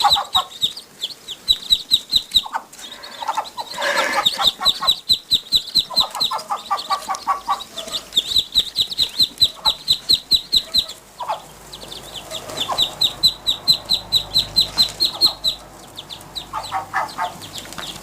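Muscovy ducklings peeping: long, fast runs of short high peeps, broken by a few lower, slower series of calls, about a third of the way in and again near the end.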